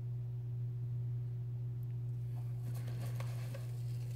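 A steady low hum, with a few faint soft handling sounds and ticks just past the middle.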